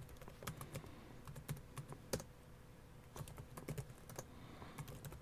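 Keystrokes on a computer keyboard: faint, quick runs of key clicks. Near the middle there is a pause of about a second before the typing resumes.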